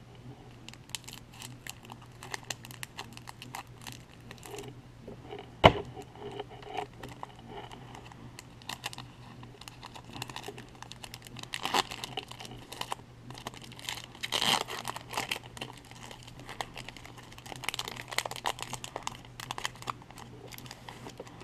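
Foil baseball card pack wrapper being crinkled and torn open by hand: a long run of irregular crackles, with one sharp snap about six seconds in and denser bursts of crinkling later on. A faint steady low hum sits underneath.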